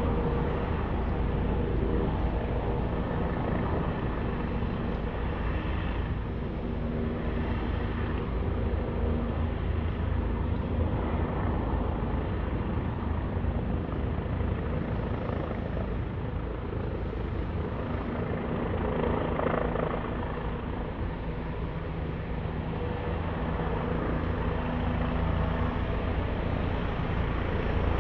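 Steady low rumble of a car driving: road and engine noise heard from inside the cabin.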